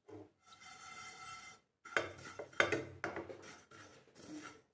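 Wooden spatula stirring and scraping dry-roasted cumin, fennel and ajwain seeds around a nonstick frying pan: an irregular run of scrapes and rustles starting about two seconds in.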